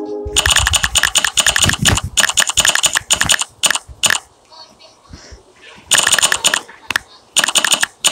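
Rapid keyboard typing clicks of a texting app's typing sound effect, in quick runs: a long run for the first four seconds, a pause, then two shorter runs near the end.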